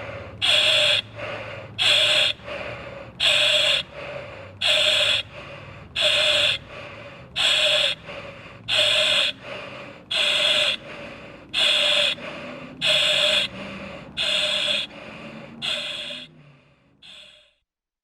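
A person breathing hard and fast: loud hissing breaths about every 1.3 seconds with softer ones between, tapering off and stopping near the end.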